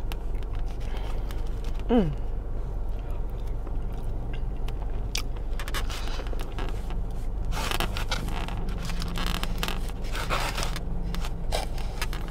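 Eating sounds: a plastic fork scraping and clicking in a foam takeout container, with a few short bursts of chewing and handling, over a steady low hum. A brief falling 'mm' about two seconds in.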